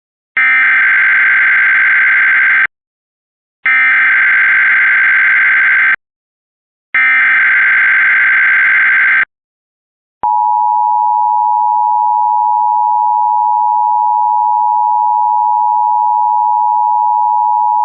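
Emergency Alert System header: three identical bursts of SAME data tones, each about two seconds long with short gaps between. About ten seconds in, the steady two-tone EAS attention signal starts and holds, announcing an alert, here a test tornado warning.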